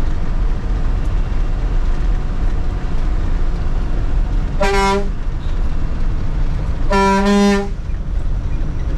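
Bus engine running steadily, heard from inside the cabin. The bus horn sounds twice near the middle, a short blast and then, about two seconds later, a longer one with a slight break, given as the bus nears a hairpin bend.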